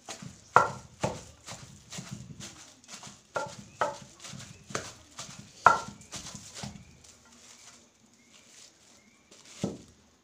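Plastic-wrapped wooden pestle pounding boiled cassava and taro in a plastic-lined bucket, mashing them smooth into getuk: steady thuds about twice a second, thinning out after about seven seconds with one more thud near the end.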